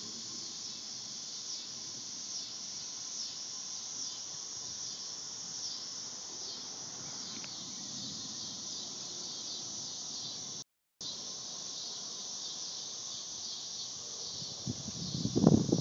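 Steady high-pitched summer insect chorus buzzing, cutting out for a moment partway through. Near the end a loud low rumbling burst comes in over it.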